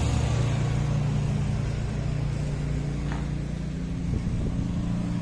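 Steady low hum of a motor vehicle's engine running.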